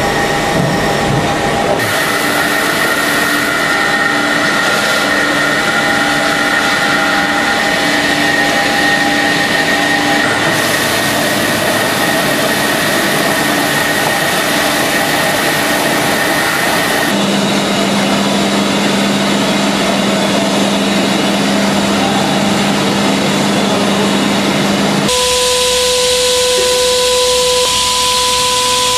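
Matsuura 5-axis CNC machining centres cutting metal parts: a dense hiss of cutting and coolant with steady whining tones from the spindle and tool. The tones and hiss change abruptly several times, with a steadier pair of higher and lower whines near the end.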